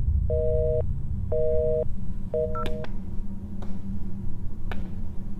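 Telephone busy signal: a two-note beep, half a second on and half a second off, three times, meaning the call is not getting through. It stops after about three seconds, leaving a steady low hum and a few faint knocks.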